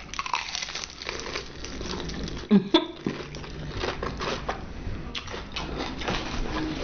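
Close-up eating sounds: chewing on fried food, with many small, irregular crackly crunches.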